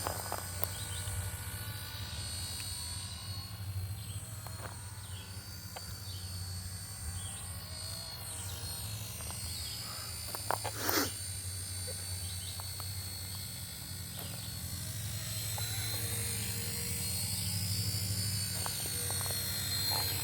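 Small RC model helicopter in flight, its motor and rotor whining steadily with the pitch bending up and down as it manoeuvres. About ten seconds in, a couple of short, sharp, loud sounds stand out.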